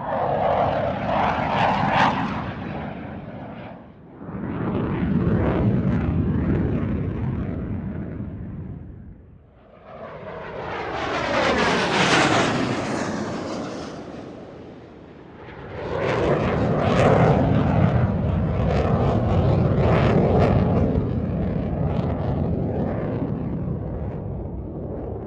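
Military jet aircraft making four separate fly-bys one after another, each swelling up and fading away. The third has a falling whistle as it passes, and the last, longest pass has a crackling jet roar.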